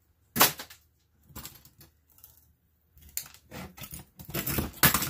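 Computer circuit boards and small scrap parts clattering and scraping on a workbench as they are handled. A sharp knock about half a second in, light rattling in the middle, then scraping and clatter that builds to the loudest knock near the end.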